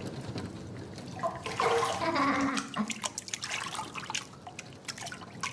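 Water trickling and dripping, with many small clicks. A few short falling tones come in the middle.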